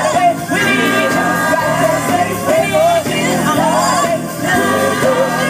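Live gospel vocal group singing with a band of drums and keyboards, amplified through stage speakers.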